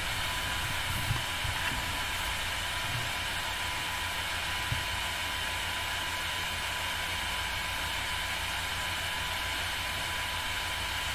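Steady hiss with a low electrical hum and a faint steady high tone, with a few faint knocks in the first five seconds.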